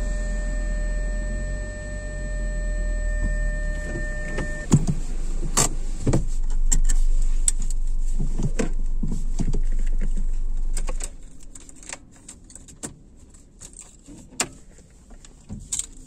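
Inside a car stopped in traffic: a steady low engine rumble with a faint steady tone that ends about four and a half seconds in. Then a run of sharp clicks and knocks inside the cabin, and about 11 seconds in the rumble cuts off suddenly, leaving only scattered small clicks.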